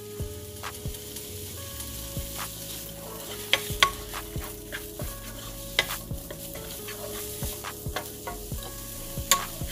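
Sliced mushrooms, bell peppers and onions sizzling in a nonstick frying pan as a slotted wooden spatula stirs them, with sharp taps and scrapes of the spatula against the pan now and then.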